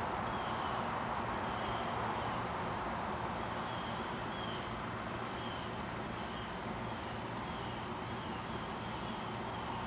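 Steady hum of distant light traffic, with faint short bird chirps repeating every second or so, mostly in the second half.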